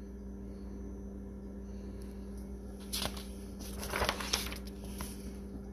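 A hardcover picture book's page being turned: a short paper rustle about three seconds in, then a longer swish around four seconds, over a steady low hum.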